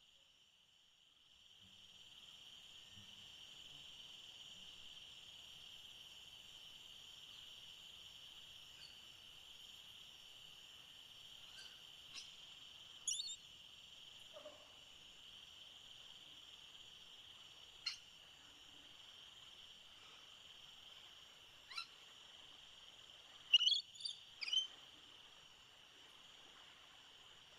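Steady high-pitched insect drone with scattered short bird chirps over it, a few single calls, then a loud cluster of three chirps near the end.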